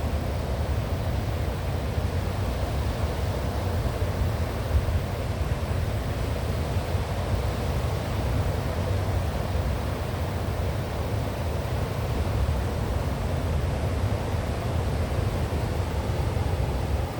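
Strong wind and ocean surf: a steady rush of noise with a heavy low rumble from wind buffeting the microphone, and no separate wave breaks standing out.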